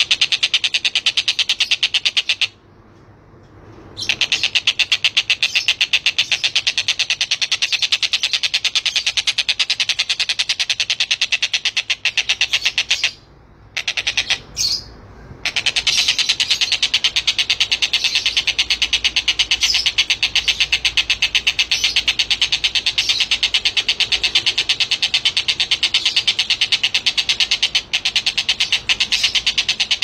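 Javan kingfisher (tengkek buto) calling a long, fast, high-pitched rattling trill of rapidly repeated notes, breaking off twice briefly.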